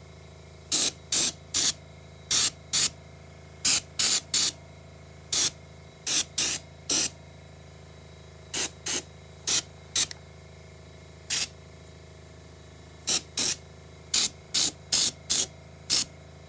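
Bottom-feed airbrush spraying brown paint in about two dozen short, sharp hisses, often in pairs or quick runs of three or four, with pauses between: light dusting passes kept as light as possible. A faint steady low hum runs underneath.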